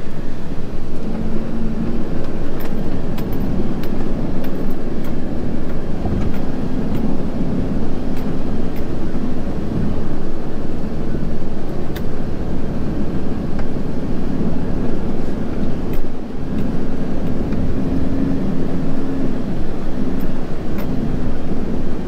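Fire-fighting vehicle's engine running steadily with a loud cab rumble while driving, heard from inside the cab, with occasional faint ticks.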